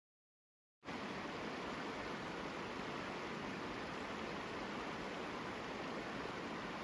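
Steady, even rush of flowing river water, cutting in abruptly about a second in after dead silence.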